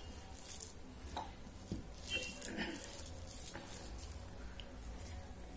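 Close-up eating sounds: wet chewing and mouth smacking, with fingers squishing and mixing rice against a steel plate in scattered small clicks.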